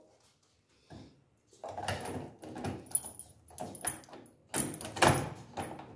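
Brass door-lock cylinder being pushed into the lock by hand: irregular metal clicks and scrapes, with the keys hanging from it jingling. It starts after about a second and a half and is loudest about five seconds in.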